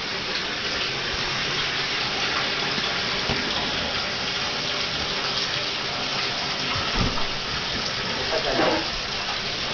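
Water running steadily from a bathtub faucet into the tub, with a short knock about seven seconds in.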